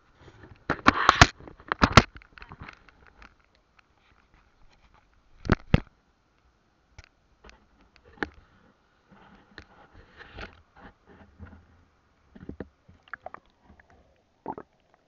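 Irregular underwater clicks and knocks, loudest in a cluster near the start and a pair about five seconds in, over a faint steady whine: a camera held close to submerged rock, bumping and scraping against it.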